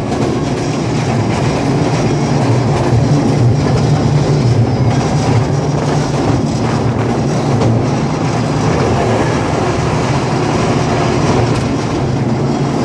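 Small tourist train heard from inside its carriage, running steadily along the track: a continuous rattle of wheels and carriage over a low hum.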